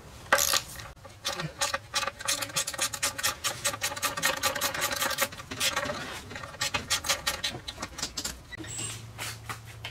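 Hand ratchet wrench with a socket extension clicking quickly and steadily as it loosens an engine mounting bolt.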